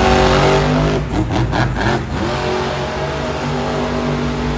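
Son-uva Digger monster truck's supercharged V8 engine revving hard as the truck turns on the dirt. Its pitch swings up and down, then holds steadier toward the end.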